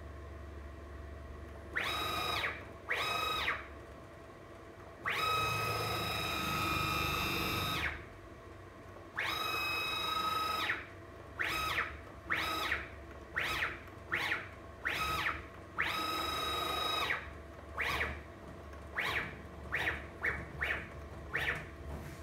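Grizzly G0704 mini mill converted to CNC, its x-axis drive motor moving the table in a series of jogs. Each move's whine rises in pitch as it speeds up, holds steady, then falls as it slows to a stop. There are about a dozen moves, from half a second to about three seconds long, the longest about five seconds in.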